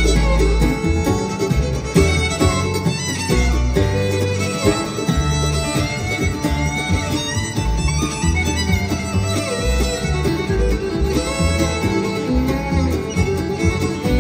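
Acoustic string band playing a bluegrass instrumental live, the fiddle leading over mandolin, acoustic guitar and upright bass.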